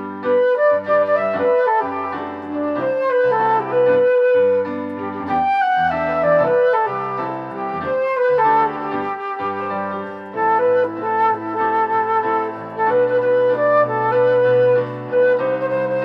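Flute playing a pop-song melody over a recorded backing track, with sustained lower notes beneath the moving tune.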